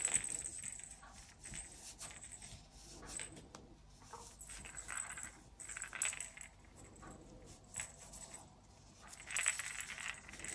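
Faint, uneven rustling of polyester fibre stuffing, rubbed and pushed by hand down into a crocheted tube.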